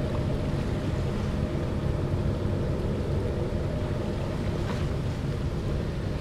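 Steady low drone of a cabin-cruiser motorboat's engine running under way, mixed with wind rumble on the microphone.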